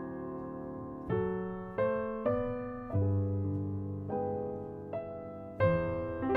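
Background music: a piano playing slow jazz chords, each chord struck and left to fade, with a fresh chord about a second in and several more after.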